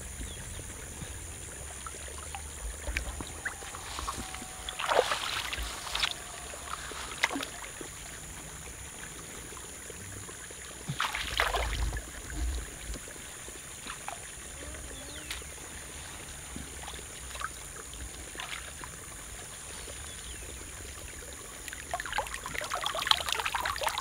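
Water sloshing and splashing in a shallow muddy pool, with scattered splashes and drips; the louder splashes come about five and eleven seconds in, over a steady high hiss.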